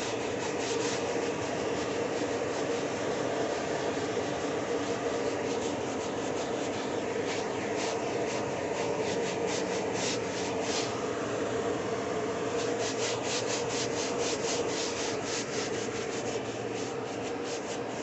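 Bristle brush cap of an aerosol foam upholstery cleaner scrubbing foam into a fabric car seat: rapid back-and-forth rubbing strokes in several runs, over a steady low hum.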